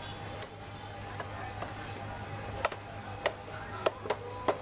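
Sharp knocks of fish being cut on a bonti (upright fixed blade) and of pieces landing on steel trays: about five in the second half, several with a short metallic ring.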